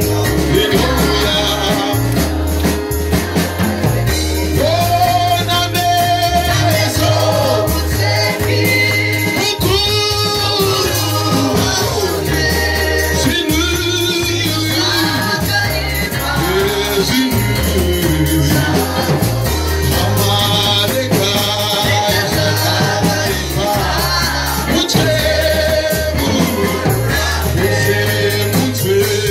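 Gospel praise-and-worship music: a man sings the lead through a microphone over a steady bass line and rattling shaker percussion.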